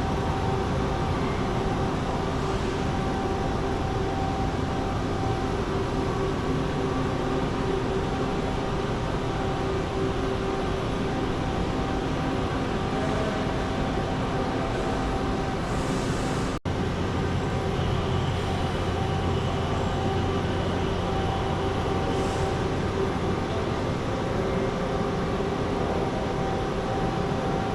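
Steady vehicle rumble with a constant hum, broken once by a very short cut about two-thirds of the way through.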